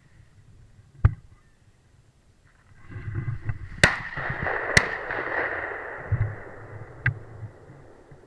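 Shotgun fire: a sharp bang about a second in, then two shots about a second apart near the middle, each followed by a rolling echo, and a smaller crack near the end.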